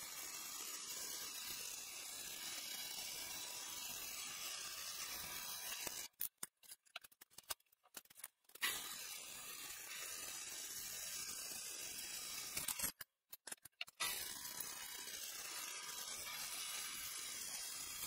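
Drill press running, its bit cutting through a steel knife-handle blank with a steady hiss. The sound drops out twice, for about two seconds a third of the way in and for about a second about two-thirds of the way in.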